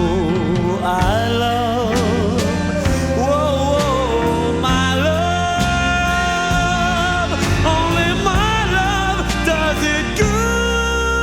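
Song outro: a wavering, wordless vocal or lead melody over the full band backing, settling into a held final chord about ten seconds in.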